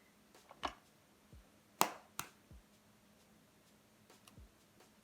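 A few sharp taps and clicks, the loudest about two seconds in, with a few faint low thuds: eggs being tapped and cracked on a hard edge to separate the whites.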